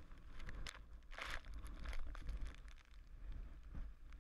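Low wind rumble on the microphone with scattered crackles and rustles of handling noise, and a louder rushing burst about a second in.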